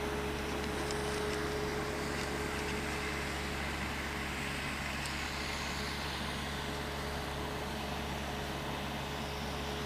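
Steady wind noise on the microphone. A faint steady whine from the micro RC airplane's twin small electric motors fades about a second in.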